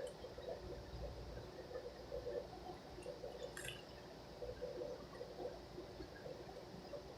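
Faint chewing: soft, irregular wet mouth sounds from someone eating a burger, with a couple of small clicks midway.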